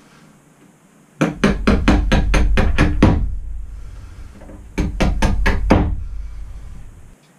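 Claw hammer tapping through-bolts down into their holes in a plywood bed platform. There is a quick run of about ten sharp blows, a short pause, then about five more.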